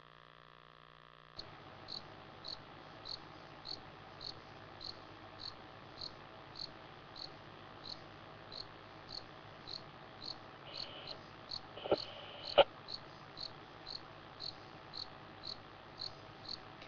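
A cricket chirping steadily, a bit under two chirps a second, cutting in about a second and a half in after a faint steady hum. Two sharp knocks sound close together about twelve seconds in.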